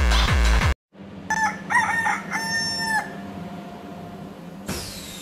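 Electronic dance music with a heavy beat cuts off abruptly under a second in. Then a rooster crows: a cock-a-doodle-doo of a few short rising notes ending in one longer held note.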